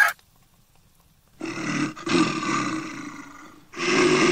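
Two loud roars of a large animal, each lasting about two seconds and fading out, the first starting about a second and a half in.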